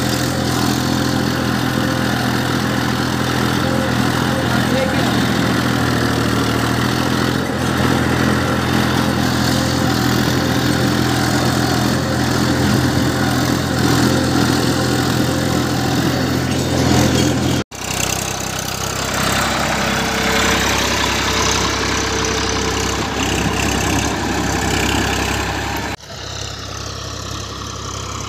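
Massey Ferguson 241 tractor's three-cylinder diesel engine running steadily under load while pulling a mouldboard plough. The sound cuts abruptly twice, and is quieter after the second cut.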